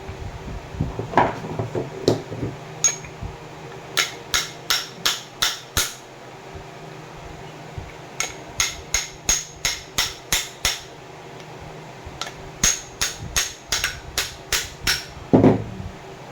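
Sharp metallic tapping in three quick runs of six or seven strikes each, about three a second, after a few scattered knocks; one heavier knock comes near the end.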